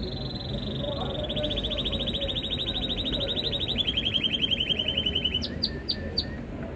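Canary vocalising: a high held note that turns into a fast, even trill for about four seconds, dropping a little in pitch midway, then three short chirps.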